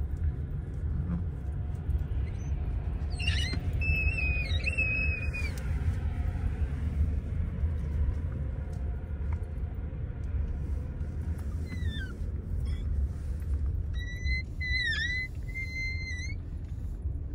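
Steady low rumble of a car driving slowly, heard inside the cabin. A few short high-pitched squeaks come about three seconds in and again near the end.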